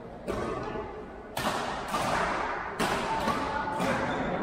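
Badminton rackets striking a shuttlecock in a fast doubles rally: several sharp hits, roughly one a second, each ringing briefly in a large gym hall.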